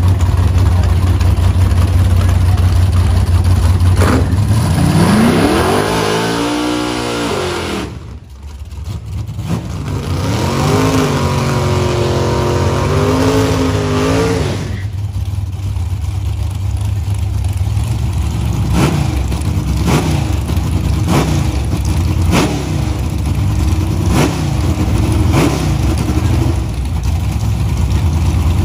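Drag-race car engines running loud, revved up and down in two long pulls, then blipped in short revs about once a second.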